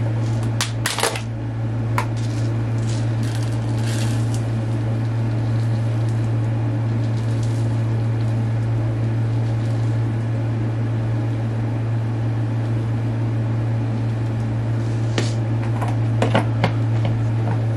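Rolled oats being handled in a cardboard Quaker 1-minute oats canister: the lid coming off and oats pouring and rattling into a plastic bowl, as short clicks and scrapes near the start and again near the end. A steady low hum runs under it throughout.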